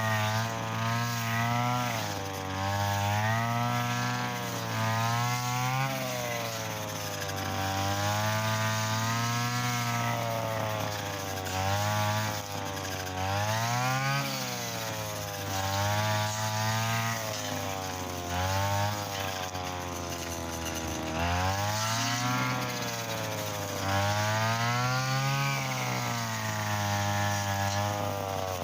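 Mitsuyama brush cutter's small petrol engine running hard with 2.4 mm nylon trimmer line, cutting thick, stiff field grass. The engine note rises and falls every second or two as the cutting head works through the grass.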